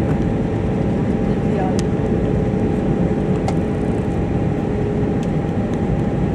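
Steady in-flight cabin noise of an Airbus A320-212 with CFM56 turbofans: a deep rush of airflow and engine noise, with two faint steady hums, the lower one fading out near the end.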